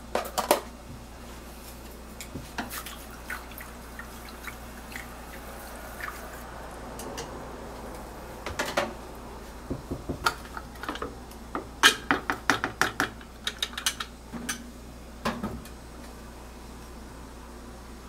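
Kitchen handling sounds: scattered clicks, taps and clinks of dishes and utensils, busiest in a quick cluster from about ten to fourteen seconds in, with a soft watery hiss for a couple of seconds before that.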